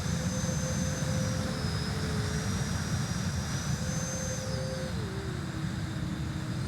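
RC electric ducted fan jet whining in flight, its pitch stepping down and back up several times as the throttle changes, over a steady low rumble.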